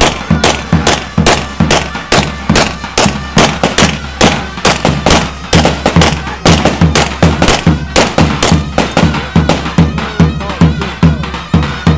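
Davul, the large Turkish double-headed bass drum, beaten in a fast, steady dance rhythm of about four strokes a second. A faint higher melody line runs over it.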